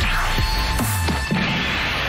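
Electronic dance backing music with deep bass hits and several quick falling pitch sweeps.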